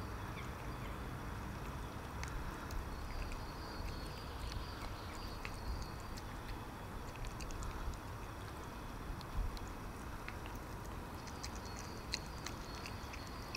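A cat eating wet food from a plastic tub: scattered soft chewing and smacking clicks over a steady background hiss with a low rumble.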